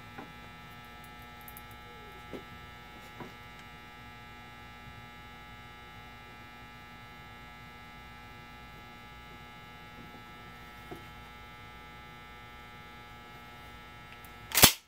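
Steady electrical mains hum, with a few faint clicks of a small Allen wrench and screws on a polymer shotgun side saddle. A single loud knock comes just before the end.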